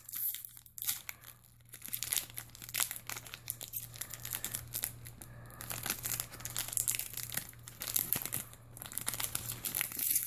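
Trading card blister pack packaging being torn open and handled: a dense, irregular run of crinkling and crackling with short tearing sounds, which stops abruptly near the end.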